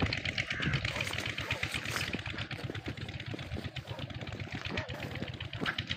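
A small engine running steadily, with a fast, even pulse.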